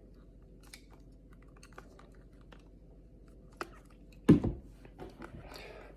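Small plastic clicks and rustles from handling fidget toys and their packaging, with one loud thump about four seconds in.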